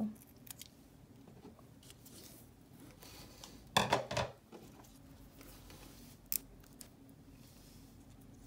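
Scissors snipping construction paper in small clicks and cuts. About four seconds in comes a brief louder burst of handling noise, and a little later a single sharp click.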